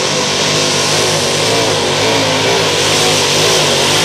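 Modified pulling tractor's supercharged engine running loud at full power under load, its pitch wavering up and down.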